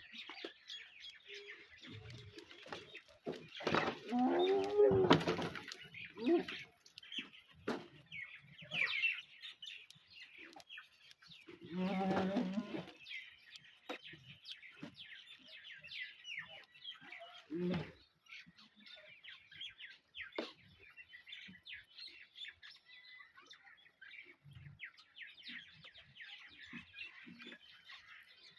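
Birds chirping and twittering continuously. Goats bleat loudly over them, a long call about four seconds in and a shorter one about twelve seconds in, with a few fainter calls between.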